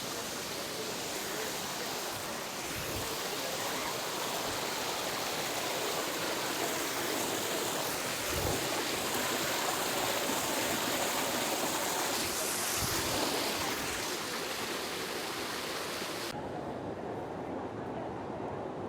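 Steady rush of falling water from a waterfall. About sixteen seconds in, the high hiss cuts away abruptly, leaving a duller rumble.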